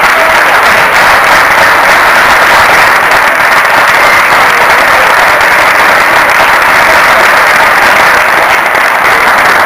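An audience applauding steadily, a dense even clapping.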